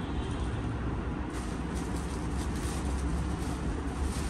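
Plastic garment packaging rustling and crinkling as a stack of wrapped packets is handled, starting about a second in, over a steady low background rumble.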